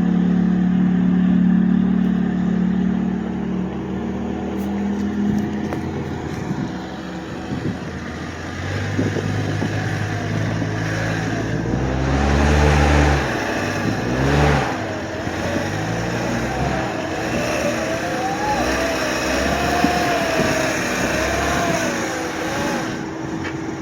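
Off-road vehicle engine running, revving up and down around the middle, with a wavering higher whine in the last few seconds.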